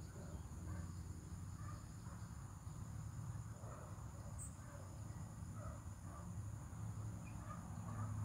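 Faint steady high-pitched drone of insects calling, with a low hum underneath that grows a little louder near the end.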